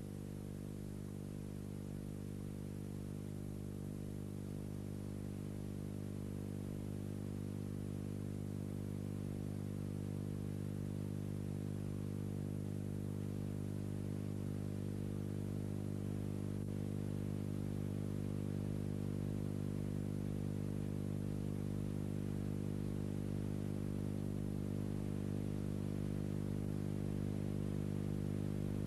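Steady low engine drone of constant pitch, slowly growing louder.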